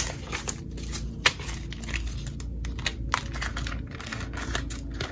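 Paper banknotes rustling and crinkling as a stack of cash is handled and worked into a clear plastic binder pocket, with a string of light ticks and two sharp clicks, one right at the start and one about a second in.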